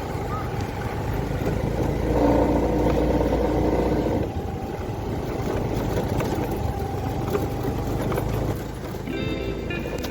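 Motorcycle engine running while riding, with wind and road noise, louder for a couple of seconds about two seconds in. Music comes in near the end.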